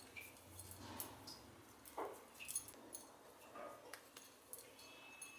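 Faint, scattered soft handling noises and light clicks: kabab dough being shaped by hand, with an occasional small clink.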